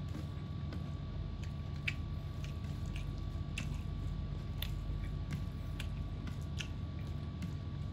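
Close-up eating sounds: scattered soft clicks and squishes of chewing and of fingers working rice on a plate, over a steady low hum.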